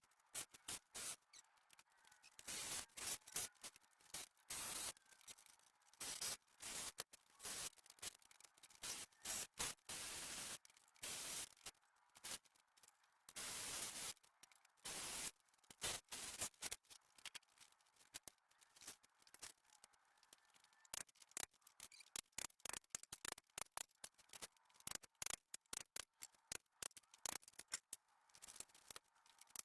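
Wooden pallets being pried and knocked apart: a choppy run of short scraping, creaking and knocking noises with many brief gaps between them.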